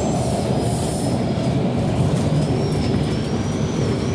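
MTR K-train running, heard from inside the carriage: a steady low rumble from wheels and running gear, with a thin high-pitched whine that wavers in pitch.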